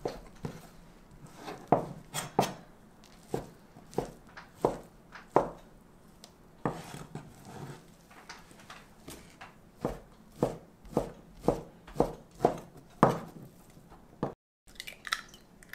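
Chef's knife slicing imitation crab sticks and then bacon on a plastic cutting board: a series of sharp knocks as the blade strikes the board. The knocks come irregularly at first and then settle into a quicker run of about two a second in the second half.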